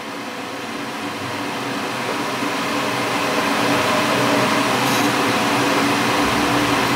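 Spray booth extraction fan running with a steady whir, growing louder over the first few seconds and then holding level.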